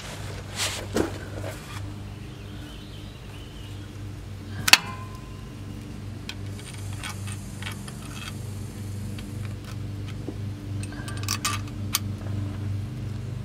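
Metal hand tools clinking and rattling against the oil cooler line fitting and its retainer bolts under a Chevy LQ4 V8. There is a sharp metallic clink about five seconds in that rings briefly, and another cluster of clinks near the end, over a steady low hum.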